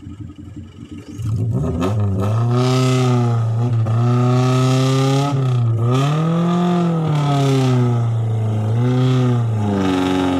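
Daihatsu Feroza 4x4's engine revving hard on a steep, rocky, muddy climb. About a second in it jumps from a low idle to high revs and is held there, the pitch swelling and dipping several times, loudest and highest about two-thirds of the way through.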